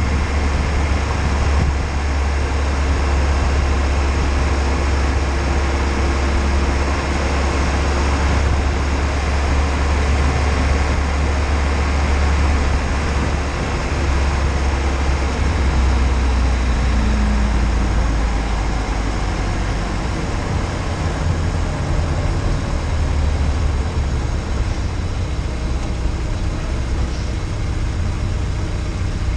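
Peugeot 306 GTi-6 running at low speed, its engine heard under heavy wind rumble and tyre-on-tarmac noise at a camera mounted low on the car's outside. The sound stays steady, a little quieter in the second half.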